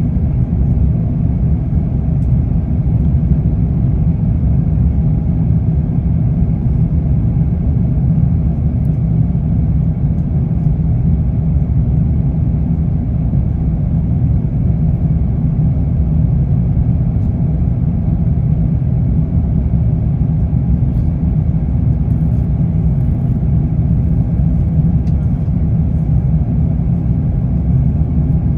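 Cabin noise of an Airbus A350-900 in its climb after takeoff: the Rolls-Royce Trent XWB engines and rushing air as a steady low rumble.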